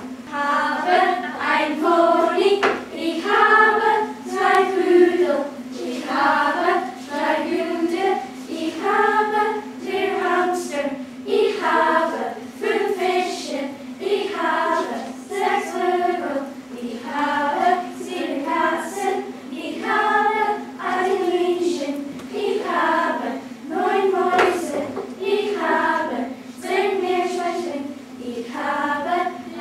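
A group of young school pupils singing together in French, in short rhythmic phrases about a second long, with a steady low hum underneath.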